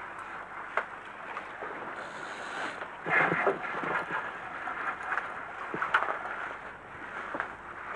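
Wind buffeting the microphone and choppy sea water washing against a small boat, louder for a moment about three seconds in, with a few sharp clicks.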